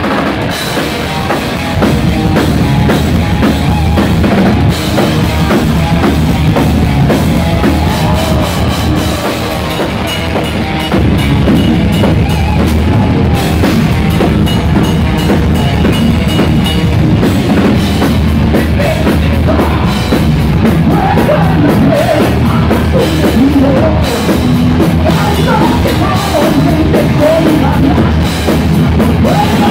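Heavy metal band playing live without vocals: a drum kit, electric guitar and bass guitar.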